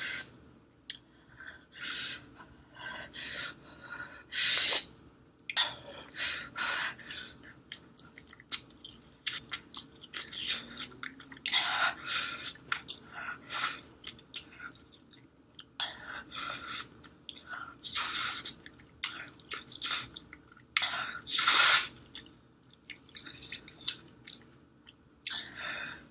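Close-miked eating of spicy instant noodles: irregular slurps and chewing, with short sharp bursts of sound every second or so.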